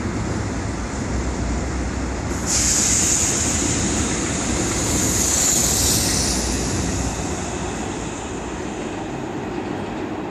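Seoul Metro Line 2 train with Mitsubishi Electric (MELCO) chopper control running on elevated track with a steady rumble. A high hissing squeal starts suddenly about two and a half seconds in and dies away after about four seconds as the train moves off.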